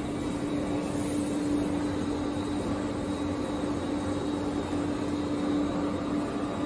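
Vertical lathe running as it machines a slewing bearing ring: a steady machine drone with one constant tone held throughout.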